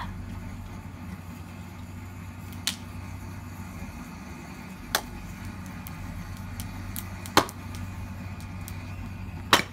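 Axe chopping into a block of wood set on a tree stump: four sharp strikes, about two and a half seconds apart, over a steady low hum.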